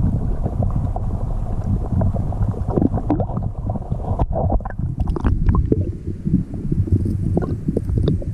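Water sloshing and gurgling close to the microphone as a bass is held in the river to be released, with wind buffeting the microphone.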